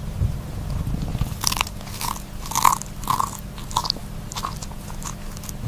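Crunchy chewing: a crisp bite or crunch about every half second, starting about a second and a half in.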